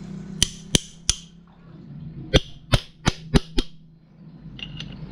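Sharp metal-on-metal knocks during engine teardown: three quick strikes, a pause, then five more in a fast run, each with a brief ringing tail.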